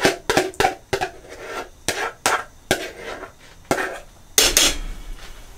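A spoon clinking and scraping against a bowl in quick short strokes as the vegetable and cream of chicken soup mixture is scraped into the soup pot. The strokes slow after the first second, and there is a longer scrape about four and a half seconds in.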